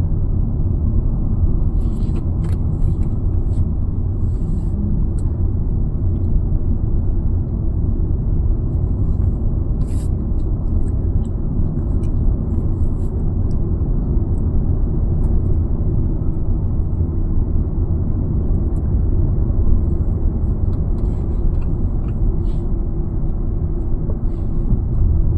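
Hyundai Creta driving on a highway: a steady low rumble of road and engine noise, with a few faint light clicks now and then.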